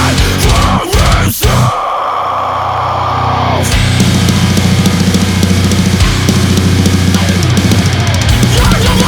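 Loud heavy-metal style music with drums. About two seconds in the mix drops to a thin, filtered-sounding midrange part over the bass, and the full band comes back in about four seconds in.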